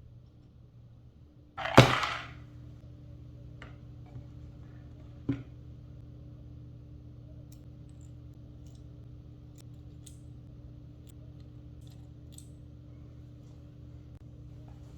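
One loud, sharp clack with a short ring about two seconds in, a smaller knock a few seconds later, then a scatter of faint light clicks over a steady low hum.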